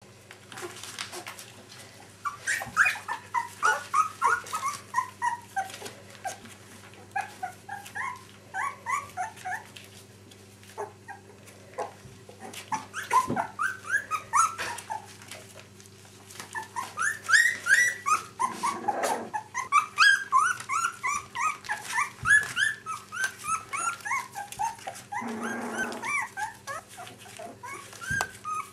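Several puppies whimpering and squeaking: a steady stream of short, high, sliding cries, often overlapping. Twice a brief noisy rustle cuts in.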